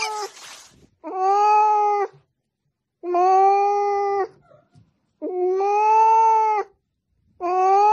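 A cat giving four long, drawn-out meows about two seconds apart, each held at a fairly steady pitch for over a second.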